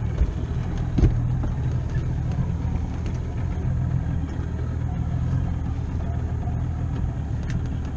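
Small boat's outboard motor running steadily underway, a low drone; a single thump about a second in.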